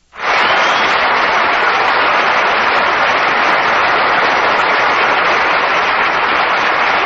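Studio audience applauding, a dense, steady clapping that starts at once after a brief silence, heard on an old broadcast recording.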